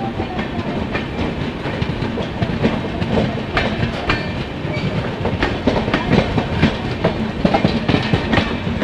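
Indian passenger train running at speed, heard from on board: a steady rumble with wheels clattering over the rail joints in a run of rapid, irregular clicks.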